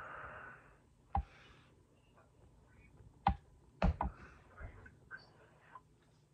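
A few sharp, isolated clicks and knocks over a quiet room, one about a second in, another past three seconds and a close pair around four seconds, with a short hiss fading out at the start.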